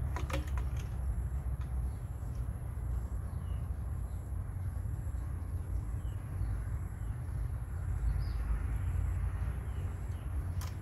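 Outdoor ambience: a steady low rumble with faint, scattered chirps of small birds and a thin, steady high whine. A quick cluster of sharp clicks comes right at the start.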